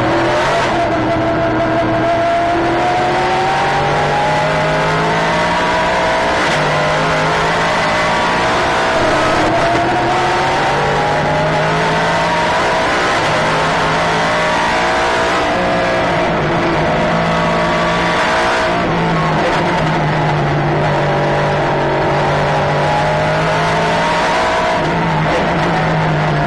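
Nissan GT-R GT race car heard from inside the cockpit at racing speed. The engine note climbs and then drops back again and again as the driver works through the gears and brakes for corners, over constant road and wind noise.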